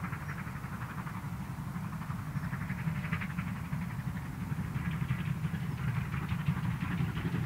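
GWR Large Prairie 2-6-2 tank locomotive No. 4144 working hard, unseen in the distance: a steady low rumble with rapid exhaust beats that grow louder and more distinct as the train approaches.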